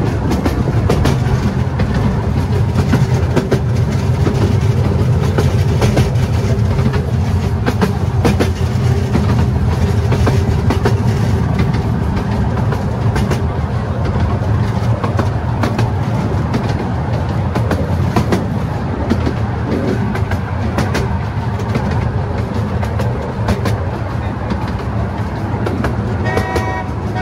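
A 12-inch-gauge miniature railway train running, heard from an open carriage: a steady rumble of wheels on the track with irregular clicks over the rail joints. Near the end come two short horn toots.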